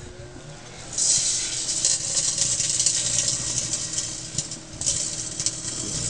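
Tinfoil arcing and burning inside a running microwave oven: a dense, high crackling hiss full of small snaps starts about a second in, eases off briefly past the middle and comes back. Under it runs the oven's steady hum.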